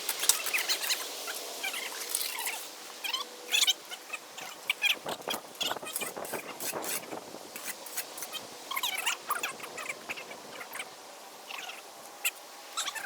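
Steel finishing and edging trowels scraping and tapping irregularly on a wet concrete slab as its edges are worked smooth.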